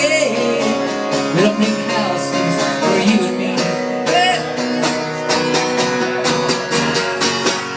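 A band playing a rock song, guitar to the fore over a steady drum beat.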